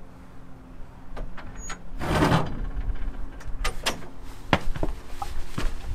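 A door being unlatched and swung open: a few clicks of the handle and latch, a louder rush of noise about two seconds in, then scattered knocks and clicks.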